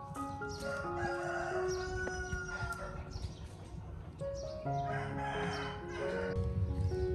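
Background music with held notes stepping from pitch to pitch, and a rooster crowing over it, the longest crow a little after the middle.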